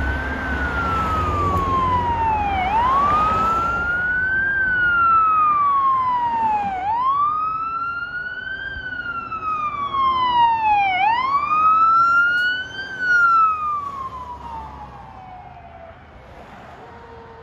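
Fire engine's electronic siren on a slow wail, rising and falling about every four seconds, fading out near the end.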